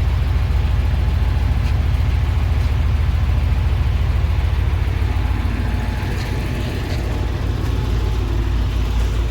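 Heavy truck's diesel engine running steadily with a deep, fast-pulsing rumble, easing off slightly for a moment about six seconds in, then picking up again.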